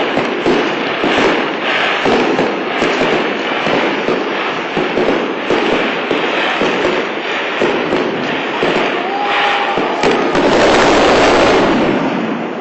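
Aerial fireworks bursting in quick, overlapping succession, a dense run of cracks and bangs that swells louder and thicker for a couple of seconds near the end.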